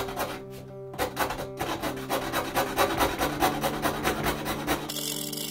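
Fretsaw blade sawing through a pine board in rapid, even strokes, stopping about five seconds in. Background music plays underneath.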